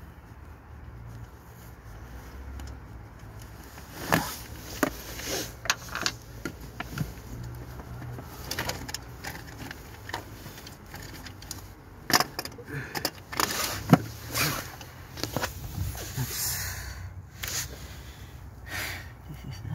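Metal tools and parts clinking and knocking while a starter motor is worked loose and lifted out of a car's engine bay. The knocks are sharp and irregular and begin about four seconds in.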